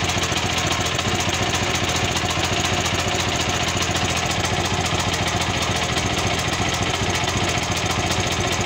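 Champion 9000-watt dual-fuel portable generator's engine running steadily on choke, just after an electric start.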